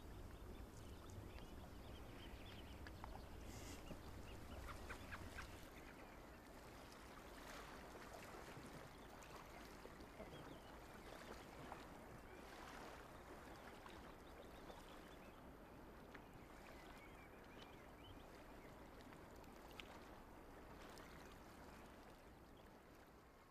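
Faint lakeside ambience: a soft wash of water with scattered distant bird calls, fading out near the end.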